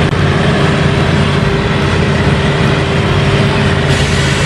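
Mobile crane's diesel engine running steadily with an even drone.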